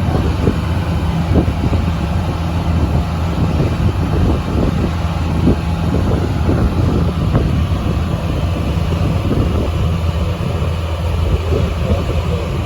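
Foley Belsaw circular sawmill running steadily with a constant low hum, broken by irregular short rattles.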